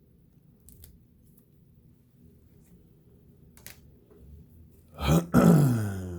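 A man's loud, low throaty vocal sound, like a burp or a groan, falling in pitch, about five seconds in. Before it, only a few faint clicks.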